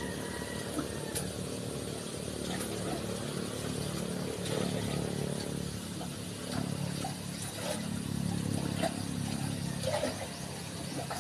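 An engine running steadily, growing a little louder around the middle, with a few faint ticks and knocks.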